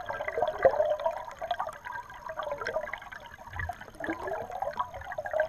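Shallow mountain creek water bubbling and gurgling over a rocky bed, heard with the microphone underwater, with many small ticks and crackles in the flow.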